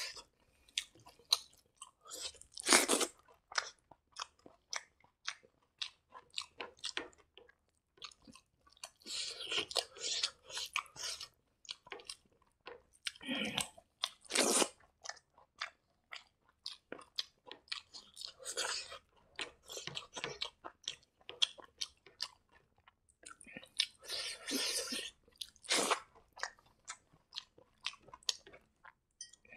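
Close-miked chewing of fried rice eaten by hand: a steady run of wet mouth clicks and smacks, with louder, crunchier bouts of chewing every four to five seconds.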